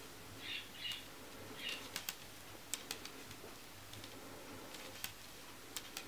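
Faint irregular clicks of metal knitting needles knocking together, with three short scratchy scrapes in the first two seconds, as stitches are bound off.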